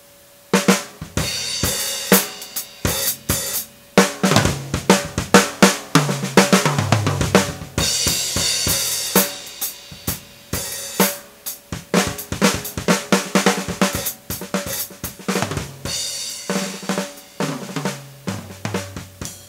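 Acoustic drum kit played in a busy beat of snare, bass drum, hi-hat and cymbals, starting about half a second in. Twice, around a third of the way in and again near the end, a tom fill steps down in pitch from the high toms to the floor tom.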